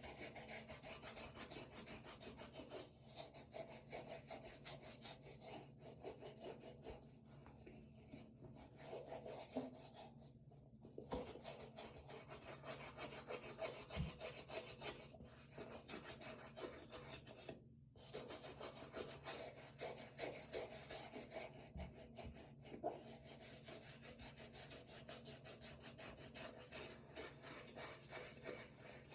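A brush scrubbing a sneaker: fast, continuous rasping strokes with brief pauses, and a few soft knocks as the shoe is moved in the sink.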